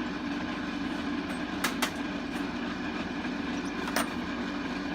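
A steady machine hum throughout, with a few sharp metallic clicks of pliers working a thin orthodontic wire: two close together a little under two seconds in and one more at about four seconds.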